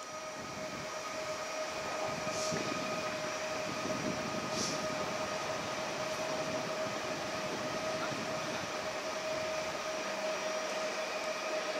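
Pesa Elf electric multiple unit moving past, a steady whine over the rumble of its running. Two short hisses come about two and four and a half seconds in.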